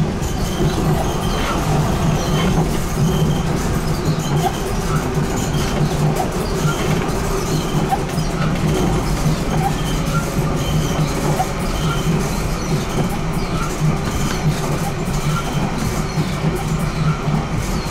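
BN GTL8 articulated electric tram running along its track, heard from inside the driver's cab: a steady low hum with wheel and rail noise and light scattered ticks.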